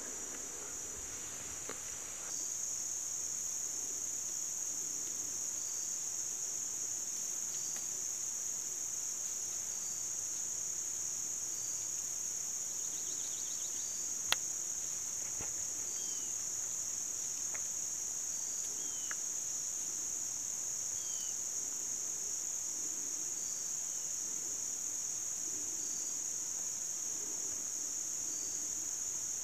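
Steady, high-pitched insect trill of crickets in the woods, with a short higher note repeating every second or two. A few brief falling chirps and one sharp click about 14 seconds in.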